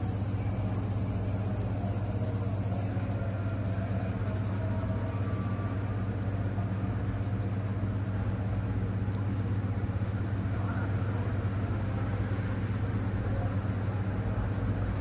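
A steady low hum that holds even throughout, with faint higher tones drifting over it in the first half.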